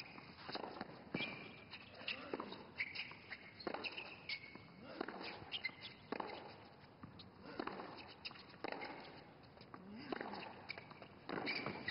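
Tennis rally on a hard court: the ball struck by rackets and bouncing on the court, giving a sharp knock roughly every second.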